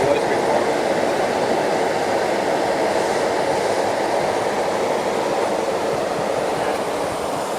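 Steady background noise of an electronics assembly floor: an even, unbroken rushing hum of ventilation and machinery.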